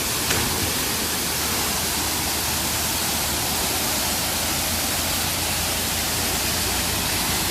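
River Nevis waterfall rushing over rocks: a loud, steady wash of water noise. A brief click sounds about a third of a second in.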